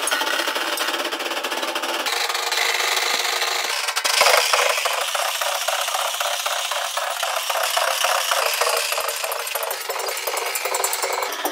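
Rapid drumming: a dense run of quick, even hits, louder from about four seconds in.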